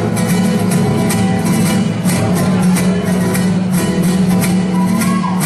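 Mariachi band playing an instrumental passage, guitars strummed in a steady rhythm under sustained melody lines.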